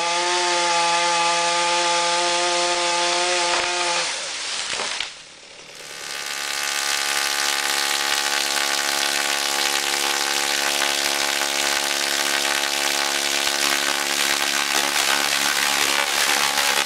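Stihl chainsaw revving up to full throttle and held there for about four seconds, then dropping off. From about six seconds in, a Tesla coil driven by a CM600 IGBT bridge fires sparks through the air with a steady low buzz at its break rate.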